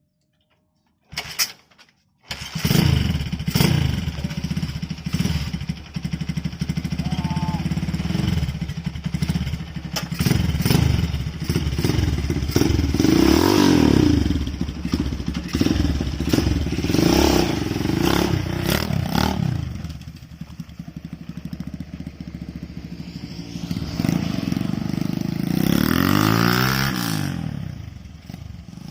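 An engine running, starting up about two seconds in, with its pitch rising and falling a few times, and quieter for a few seconds past the middle.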